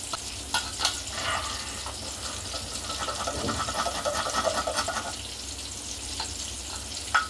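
A metal slotted spoon stirring cooked rice in an aluminium pressure cooker: a soft rustle of the rice with sharp clinks of the spoon against the pot, a couple about a second in and one near the end.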